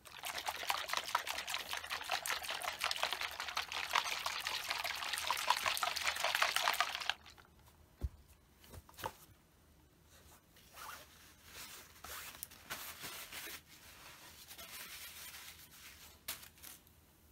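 Oil mixture sloshing inside a plastic water bottle as it is shaken hard for about seven seconds, stopping suddenly. About a second later the bottle is set down with a thump, followed by faint clicks and rustles of handling.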